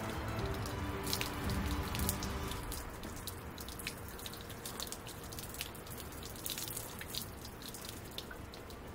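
Hot water poured from a stainless steel pot over a dented plastic car bumper, splashing and dripping onto the concrete below, with many small sharp drips throughout.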